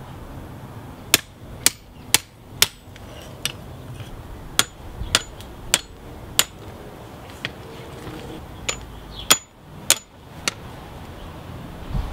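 Hand hammer striking a red-hot railroad spike on a steel anvil while the wrapped axe eye is shaped: about a dozen irregularly spaced blows, several with a brief high ring.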